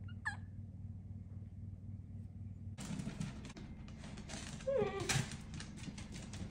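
A Bengal kitten gives one short, high mew near the start over a low steady hum. From a little before the middle there is a quick run of clicks and scuffles, the mini dachshunds' claws on wooden floorboards, with a brief whining call in the middle.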